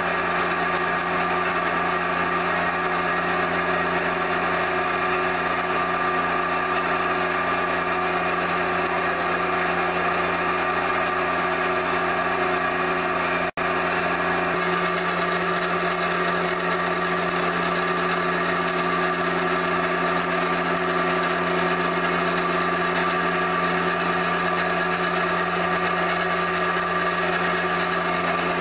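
A pug mill's electric motor and gearbox running steadily as it extrudes clay logs, a constant mechanical drone made of several steady hum tones. The sound cuts out for an instant about halfway through.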